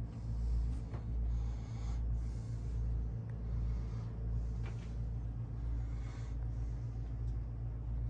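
Steady low hum in a small boat cabin, with slow breathing close to the microphone.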